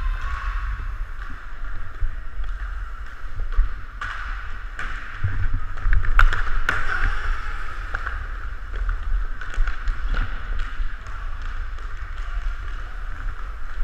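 Inline hockey skate wheels rolling on a plastic tile rink floor: a steady whirring hiss, with a low wind rumble on the microphone. Scattered sharp clacks of sticks and puck, the loudest a pair about six seconds in.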